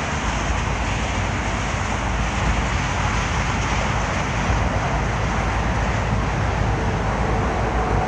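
Steady road traffic noise, an even rumble and hiss with no distinct events.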